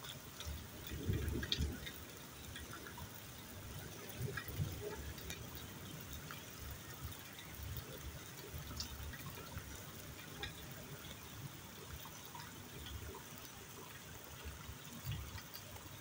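Steady pattering and trickling of falling water, with scattered small drips, around a parakeet bathing outdoors. A brief low rumble comes about a second in, and smaller ones follow later.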